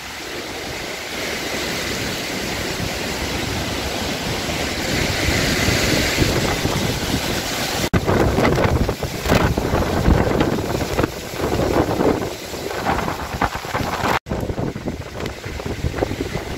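Storm wind and rain: a steady rushing hiss that swells over the first half, then uneven gusts buffeting the microphone with low rumbles after an abrupt cut about eight seconds in.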